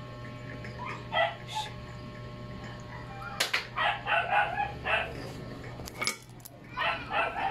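Dog yipping in short high calls, in quick runs of about four or five a second, over a steady low hum.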